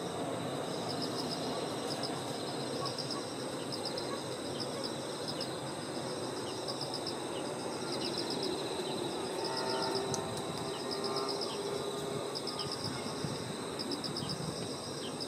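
Several insects chirping in a rural field, crickets among them: short pulsed trills repeating over a steady high buzz, with brief falling chirps, over a faint low outdoor hum that swells a little near the middle.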